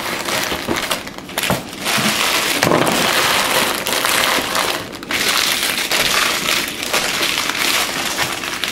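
Foil trading-card pack wrappers crinkling and rustling as they are gathered up by hand, with an empty cardboard card box being handled. The crinkling is steady apart from a short break about five seconds in.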